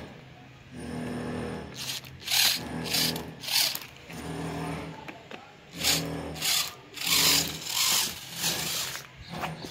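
Small electric drive motor and geared drivetrain of a homemade RC 6x6 truck whining in stop-start spurts as it drives, with louder noisy bursts from the wheels over rough concrete and gravel.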